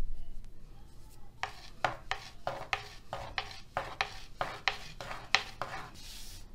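Thin wooden rolling pin rolling out dough on a floured marble counter, knocking against the marble in a quick run of short knocks, about three a second. A soft swish near the end.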